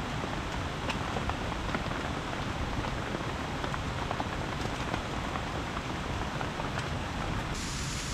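Steady rain falling, a constant hiss with scattered sharp drop ticks; the hiss turns brighter just before the end.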